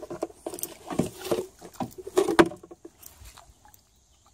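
Hooked rock bass thrashing and splashing at the water's surface beside a canoe as a landing net is dipped in around it. The splashes come in a ragged run, loudest a little past two seconds in, and die away about three seconds in.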